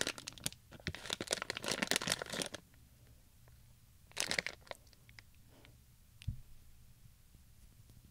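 A plastic Haribo gummy bear bag crinkling as it is torn open: a dense run of crackling for about two and a half seconds, then one short crinkle about four seconds in.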